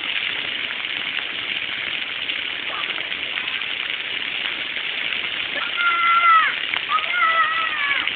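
Waterfall water rushing steadily. Two drawn-out high-pitched calls or squeals from a person near the end, each dropping in pitch as it trails off.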